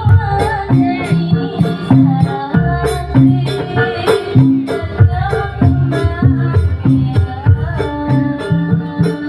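Live jaranan (kuda lumping) ensemble music, with repeating percussive notes under a melody line that bends and slides in pitch.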